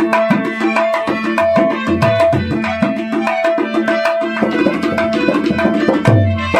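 Harmonium playing a melody over a held drone, with a hand drum keeping a quick rhythm whose deep bass strokes slide down in pitch a few times.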